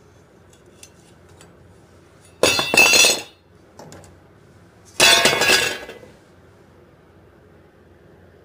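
Two pieces of an old circular saw blade set down one after the other on a wooden workbench. Each lands with a metallic clatter and a brief ringing, about two and a half seconds apart.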